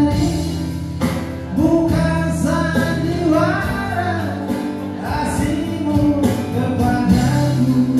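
A man sings into a microphone with a live band of guitars and keyboard playing through a PA, over steady held bass notes.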